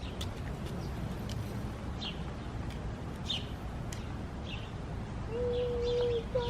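Birds chirping, short calls about once a second, over a steady low background rumble. Near the end a steady low held note sounds for about a second, then briefly again.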